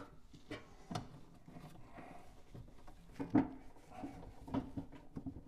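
Heavy Edison A-250 phonograph motor and its metal motor board being worked into the wooden cabinet, giving a string of irregular knocks and clunks, the loudest a little past three seconds in.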